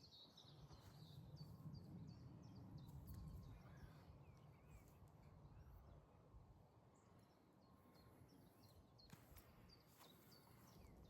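Near silence: faint outdoor ambience with small birds chirping repeatedly, mostly in the first half, over a low rumble that fades out about halfway.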